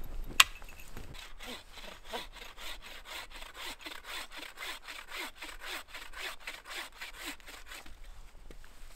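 Agawa Boreal 24 folding bow saw cutting through firewood with quick, even back-and-forth strokes that stop near the end. A single sharp click comes about half a second in, before the sawing starts.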